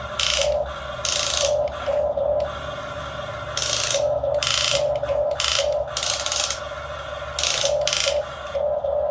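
Radio-controlled model excavator's small electric motors and gears whirring in repeated short bursts as it works, over a steady whine that pulses on and off.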